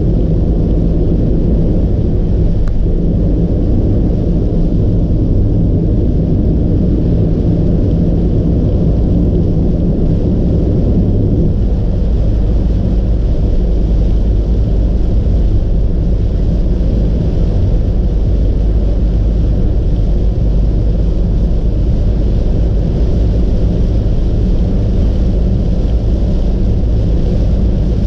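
Steady low rumble of a car driving at highway speed, heard inside the cabin: tyres on a wet road and the engine's drone, with a faint wash of rain. A single brief click about three seconds in.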